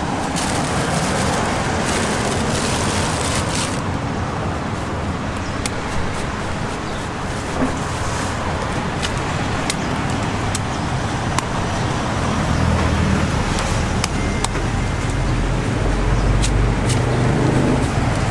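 Road traffic noise at a roadside market, with a louder hiss for the first few seconds. From about two-thirds of the way through, a low, steady engine hum grows stronger close by. Scattered sharp clicks and knocks sound over it.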